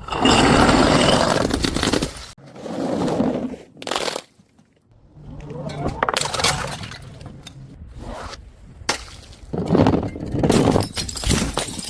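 Glass bottles breaking and shattering: a string of separate crashes, each cut off abruptly, with brief gaps between them.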